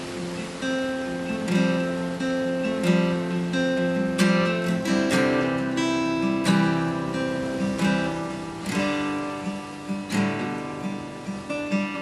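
Background music of acoustic guitar, plucked notes and strummed chords ringing in a slow, gentle rhythm.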